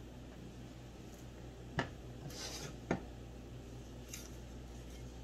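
Cookware being handled as a pan of cooked peppers is tipped into a glass mixing bowl of meatloaf mix: two sharp knocks about a second apart with a brief scraping between them, and a lighter tick later, over a steady low hum.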